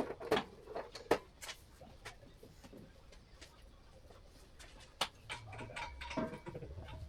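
Scattered light clicks and taps from tools and metal parts being handled at a workbench, with a few sharper knocks just after the start, about a second in and about five seconds in.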